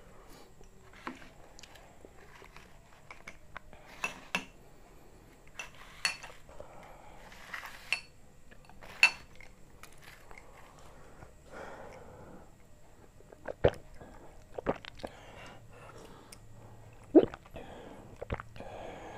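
Glasses of iced orange drink being handled: sharp separate clinks of glass and ice cubes, some ringing briefly, the loudest a little before the end. Softer sips and swallows of the cold drink come in between and near the end.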